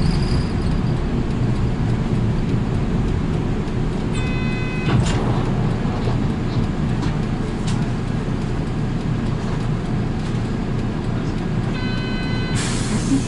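City bus heard from inside the cabin: steady engine and road rumble as the bus slows to a stop and idles. A short electronic beep about four seconds in and another near the end, then a brief burst of air hiss just before the end.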